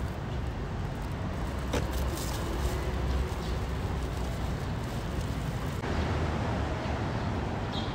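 City street traffic noise: a steady low rumble of passing vehicles, with a single sharp click about two seconds in. The background changes abruptly about six seconds in.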